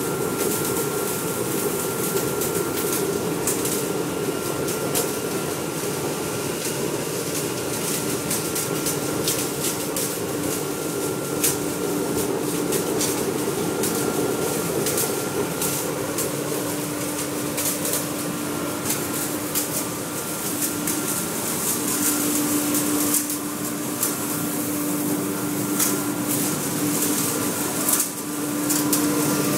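Biomass sawdust burner firing a long flame from its nozzle: a steady, fan-like rushing noise with a steady hum, broken by frequent sharp crackles.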